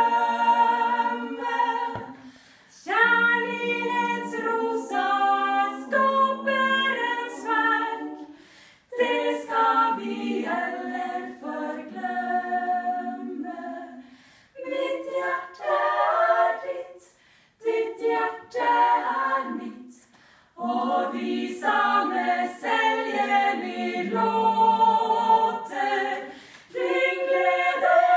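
Small women's choir singing a cappella in harmony, in short phrases with brief pauses between them.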